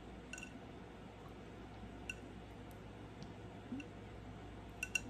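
Faint light clicks of a spoon tapping against a mixing bowl while tablespoons of maple syrup are measured in, about five in all, spaced a second or two apart, with two in quick succession near the end.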